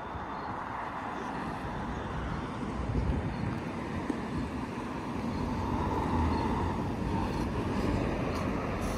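City street traffic: a steady wash of passing vehicle noise that grows louder about halfway through.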